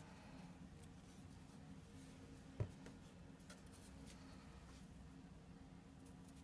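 Near silence with faint handling of a thin cardboard box being opened, one sharp tap about two and a half seconds in and a couple of faint ticks just after, over a low steady hum.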